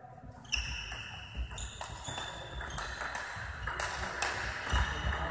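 Table tennis rally: the celluloid ball clicks sharply off the bats and the table again and again, each hit ringing briefly, starting about half a second in, with a few low thuds among the hits.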